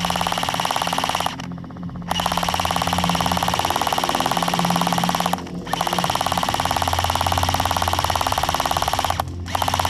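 G&P Defender M4 airsoft electric gun firing long full-auto bursts of rapid, evenly spaced shots as suppressing fire. One burst cuts off about a second in, then come two more of about three seconds each with short pauses between, and another begins near the end.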